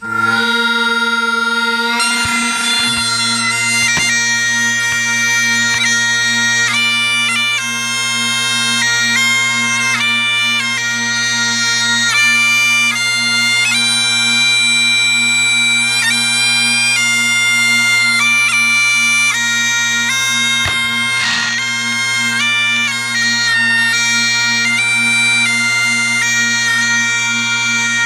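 Great Highland bagpipe playing: the drones strike in at the start, and about two seconds in the chanter begins a tune over the steady drone.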